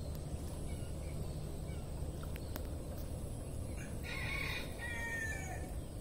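A rooster crows once, starting about four seconds in and lasting over a second, over steady low background noise.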